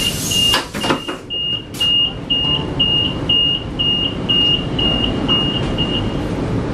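A high electronic beeper sounding a short, even beep about twice a second, some fourteen times, then stopping shortly before the end. The beeps sit over the steady rumble of a moving train, with a few sharp clicks in the first two seconds.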